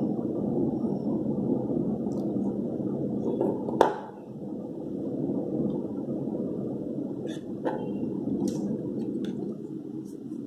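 A plastic panel-mount temperature controller handled in the hand, giving one sharp click about four seconds in and a few fainter clicks later, over a steady low background rumble.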